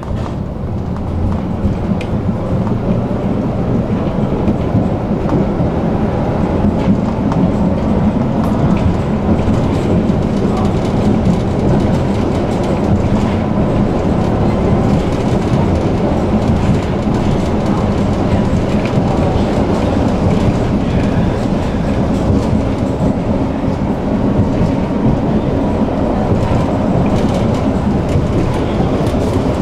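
A tram running along the track: steady rolling and rumbling from wheels on rail, with scattered small clicks. The noise builds over the first several seconds as it gathers speed, then holds steady.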